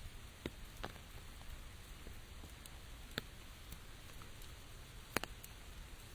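Rain falling steadily, with scattered louder single drops tapping irregularly, the sharpest about half a second in, just after three seconds and just after five seconds.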